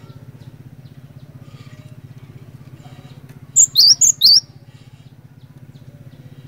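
Cinereous tit (glatik batu) singing one quick phrase of four sharp, high, down-slurred notes a little past halfway, over a steady low pulsing hum.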